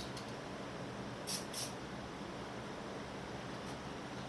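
Two short blasts from an aerosol spray-paint can, about a second and a half in, hissing briefly as army-green camo paint is sprayed through a stencil, over a steady background hiss.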